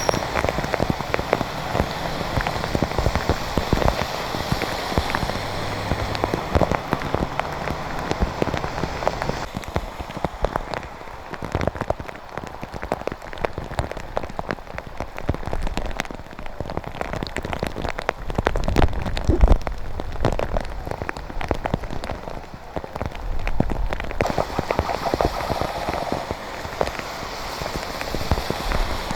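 Rain falling, with many close drop strikes over a steady hiss.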